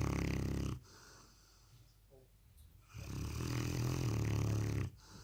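Presa Canario puppy snoring loudly in its sleep: one long snore ends under a second in, then after a quieter breath a second long snore starts about three seconds in and stops just before the end.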